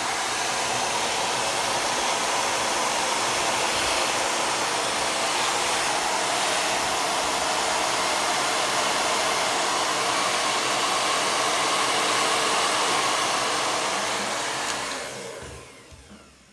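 Hand-held hair dryer blowing steadily, a constant loud whooshing rush, then switched off near the end and winding down over about a second.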